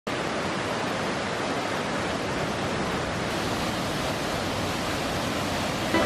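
Waterfall: water falling heavily onto rocks, a steady, even rushing noise.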